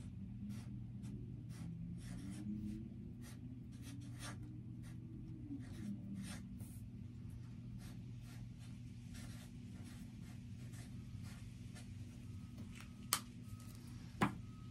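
Expo dry-erase marker writing on construction paper: a run of short scratchy strokes as letters are drawn. Near the end come two sharp clicks, the loudest sounds. A steady low hum runs underneath.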